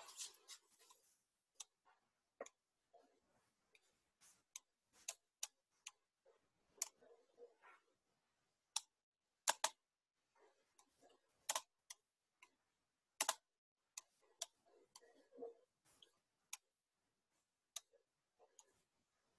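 Faint, sharp clicks at irregular intervals, a couple of dozen over the stretch, from a computer mouse being clicked while a slideshow is set up. A short rustle comes right at the start.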